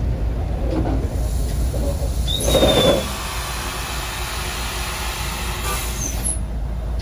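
Locomotive air brakes venting a loud hiss for about four seconds, starting with a burst and a short falling squeal and cutting off suddenly, over a steady low rumble.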